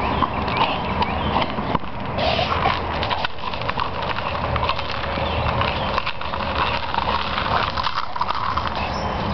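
American Staffordshire Terrier working a hard plastic ball through dry grass and fallen leaves: a continuous crackle of leaves with many small knocks and scuffs from paws and ball, along with the dog's breathing and snuffling.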